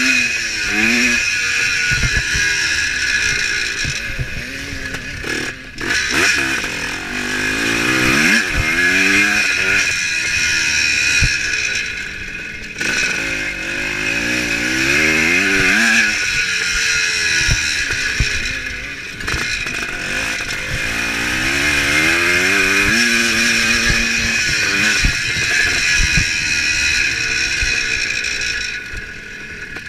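1975 Kawasaki KX400 two-stroke single-cylinder engine revving up and falling off again and again as the dirt bike is ridden hard over a motocross track. A steady rush of wind and scattered low knocks run under it.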